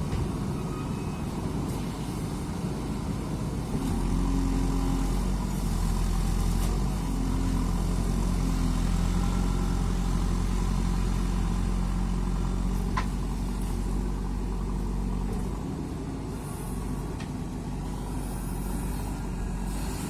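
Diesel engine of a JCB 3DX Super backhoe loader running steadily, growing louder about four seconds in and easing back near the end.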